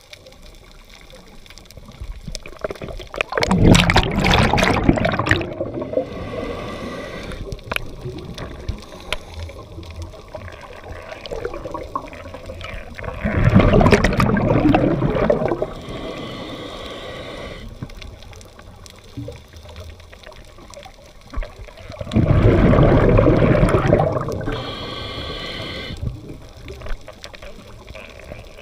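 Water noise heard underwater by a swimming camera: three loud bursts of rushing, bubbling water roughly nine seconds apart, each about two seconds long. Each burst is followed by a fainter, higher hiss.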